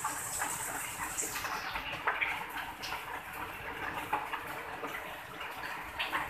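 A man eating with his fingers: chewing and small scattered clicks and smacks from hand and mouth, over a steady rushing hiss.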